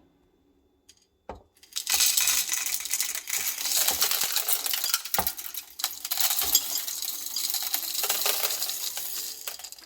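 Whole coffee beans poured into an espresso machine's grinder hopper: a dense rattling patter of beans that starts about a second and a half in and keeps going for about eight seconds.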